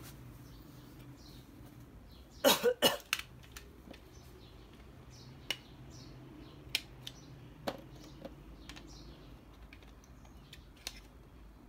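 Scattered sharp clicks and taps of small hard parts being handled, with a louder run of several quick knocks about two and a half seconds in.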